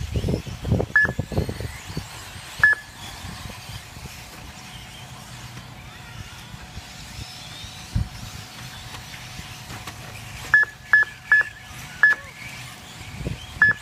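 Short, high single-pitch electronic beeps: one about a second in, another a couple of seconds later, a quick run of four near the end and one more at the very end. Under them is a steady outdoor background, with low rumbling gusts in the first two seconds and a single knock about 8 s in.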